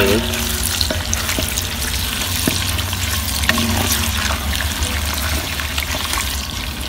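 Diced kidney fat sizzling steadily as it renders down in a steel pot, with a wooden spoon stirring the cubes and a few faint knocks against the pot. A steady low rumble runs underneath.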